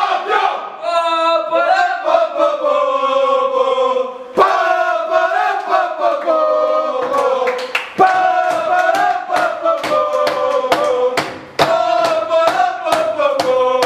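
A group of men chanting a victory song loudly in unison. From about halfway through, sharp rhythmic hits keep a quick beat under the chant.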